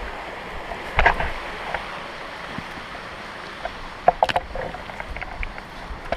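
Steady rushing of water from a waterfall and its stream, with a few sharp clicks about one and four seconds in.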